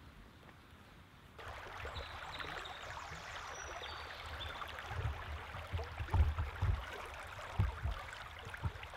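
Shallow river water flowing over stones, a steady rushing babble that starts about a second and a half in. Several low thumps come between about five and eight seconds in and are the loudest sounds.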